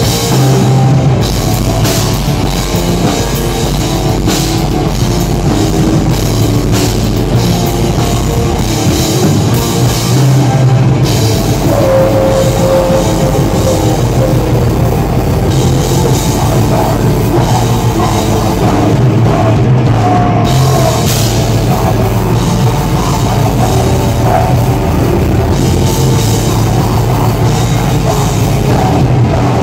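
Black metal band playing live at full volume: heavily distorted electric guitars over a drum kit. It is heard from up close beside one of the guitarists on stage.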